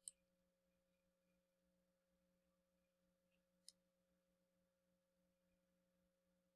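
Near silence: a faint steady hum, with two faint clicks, one at the very start and one about three and a half seconds in.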